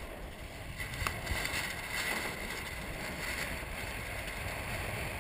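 Water rushing and splashing along the hull of a 470 sailing dinghy heeled over and moving fast through chop, with wind rumbling on the microphone. A single faint click comes about a second in.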